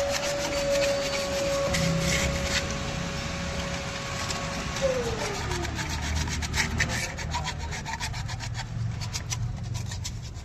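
Repeated hand scraping and rubbing strokes as the oily surfaces around the engine's valve (tappet) cover are cleaned of leaked oil. A steady whine in the background drops in pitch and fades out about five seconds in.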